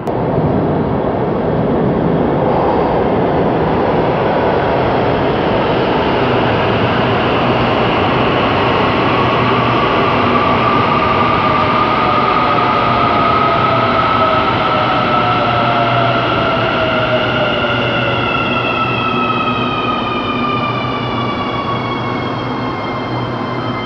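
AS-14 metro train running into an underground station and braking to a stop: a steady rumble of wheels on rail with an electric motor whine. The whine rises in pitch, then falls as several tones over the last few seconds as the train slows.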